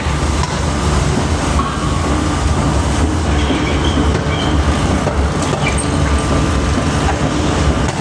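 Loud, steady rumbling and rattling of heavy machinery running continuously, with no separate hammer blows standing out.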